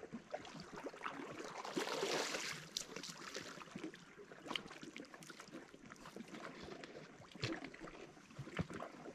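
A hooked gar splashing and thrashing at the water's surface as it is reeled in, with scattered sharp clicks and scuffs; the loudest splash comes about two seconds in.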